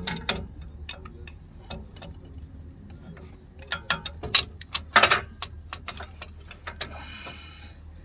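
Metal hand tools clicking and clanking on a truck's front brake caliper as a makeshift caliper-piston compressor is set back in place and worked. The clicks are irregular, with a cluster of louder clanks about four to five seconds in.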